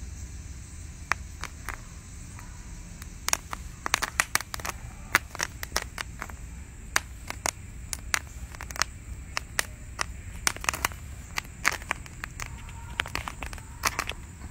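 Popcorn kernels popping on hot charcoal: sharp, irregular pops, a few at first, then several a second from about three seconds in, over a low steady rumble.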